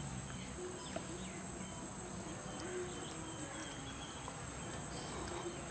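Insects chirring in one steady high-pitched drone.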